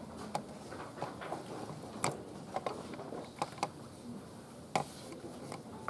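A quiet standing crowd with a low background murmur, broken by scattered sharp clicks and taps at irregular intervals.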